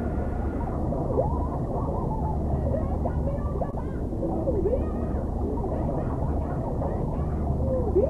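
Soundtrack processed with an underwater effect: a deep steady rumble under muffled, warbling tones that glide up and down many times, the original sounds smeared past recognition as if heard through water.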